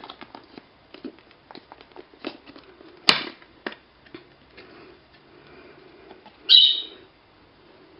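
Light clicks and taps from handling an album's CD and packaging, with one sharp click about three seconds in. A pet budgie gives one short, high chirp later on, the loudest sound here.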